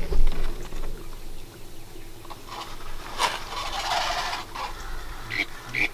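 Duck quacking: short nasal notes, a pair close together near the end, with a louder, rougher run of calling in the middle.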